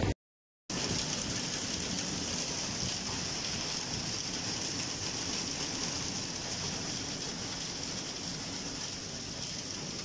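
Heavy rain mixed with small hail falling on a flat roof, a steady, even hiss that starts after a brief gap of about half a second.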